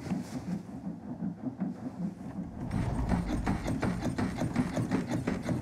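Bed springs squeaking and the bed knocking in a steady rhythm, about three times a second, as someone bounces on a mattress on purpose to fake the sound of lovemaking. Muffled at first, it becomes louder and sharper about halfway through.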